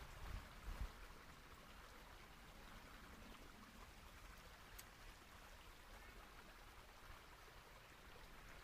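Near silence: a faint steady outdoor hiss, with a few low bumps in the first second.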